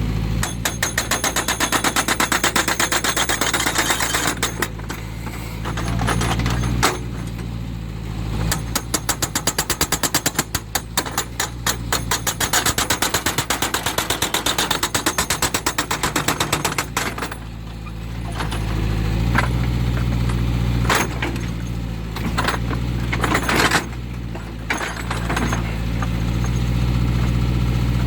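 Hydraulic breaker on a JCB 3D backhoe loader hammering rock in rapid, machine-gun-like blows: a burst of about four seconds, a short pause, then a longer burst of about eight seconds. Near the end a few separate knocks come over the backhoe's diesel engine running steadily.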